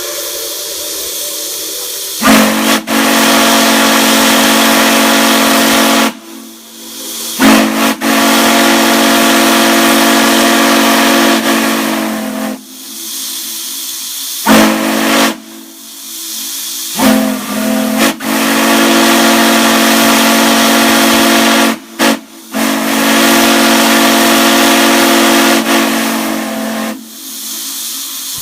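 Chime steam whistle blowing a low chord in a series of long blasts of about four to five seconds each, with a brief toot in the middle of the series. Steam hisses before the first blast and between blasts.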